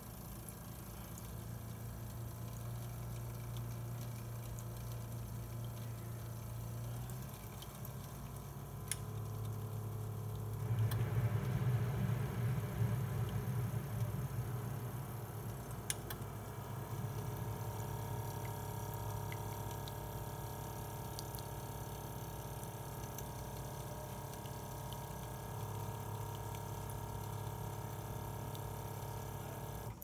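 Aicok single-serve pod coffee maker running a brew cycle: a steady low pump hum with a thin trickle of water into a ceramic mug. The hum shifts in pitch about seven and eleven seconds in and turns louder and rougher for a few seconds. The machine is pulling up only a small amount of water, the fault its owner is testing for.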